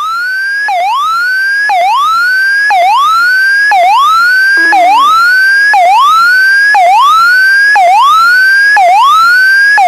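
T-45 Goshawk cockpit aural warning tone, a rising whoop repeating about once a second and growing slowly louder, sounding while the bird-struck engine is failing.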